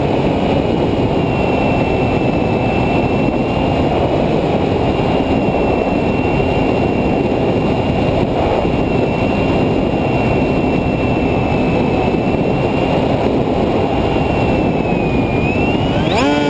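A model airplane's motor and propeller whine at a steady pitch under heavy wind rush on the onboard camera as the plane flies low. Near the end the whine dips a little in pitch and then climbs sharply.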